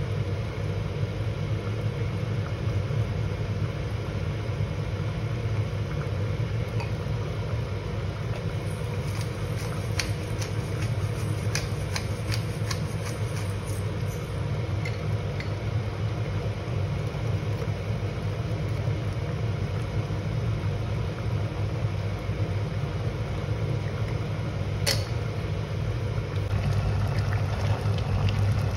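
Steady low mechanical hum, with a pepper grinder turned over the soup pot for several seconds in the middle, a quick run of gritty clicks. A single sharp click follows near the end.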